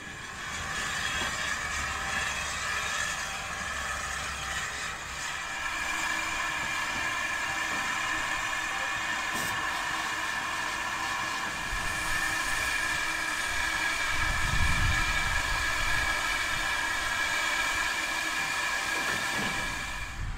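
Steam locomotive letting off steam: a steady hiss with several held tones in it. A low rumble rises and fades about three quarters of the way through.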